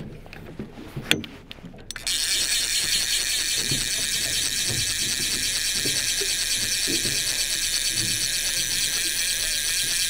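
Single-action fishing reel's click ratchet buzzing steadily as the spool spins, starting suddenly about two seconds in, with a few low handling knocks under it.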